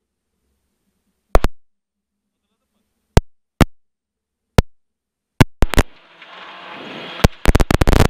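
Rally intercom audio, gated to silence and broken by sharp, loud clicks at irregular intervals, about a dozen of them and bunching up near the end. A rushing noise comes in about six seconds in.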